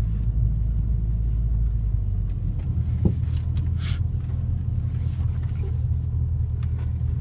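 Car running and moving, a steady low engine and road rumble heard from inside the cabin, its low pitch shifting about two and a half seconds in.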